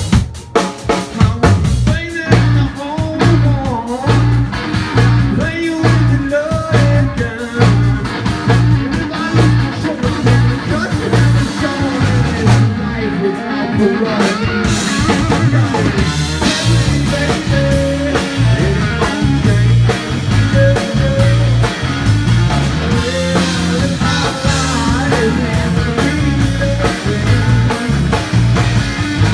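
Live blues-rock band playing: electric guitars over a drum kit, with a heavy, steadily repeating low bass line.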